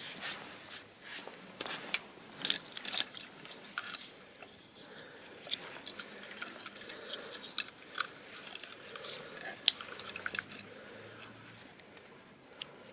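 Scattered light clicks and rustles of plastic wiring-harness connectors and cables being handled, a dozen or so sharp little clicks spread through, with quiet stretches between.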